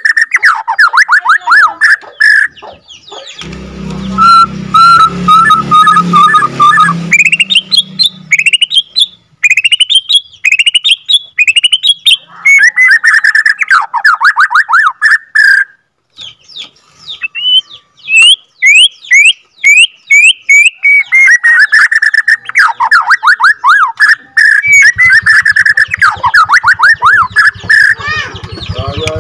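White-rumped shama (Bornean murai batu) singing a long, loud rolling song: fast trills of repeated notes alternating with runs of sharp, rising whistled notes, with one short break about halfway through.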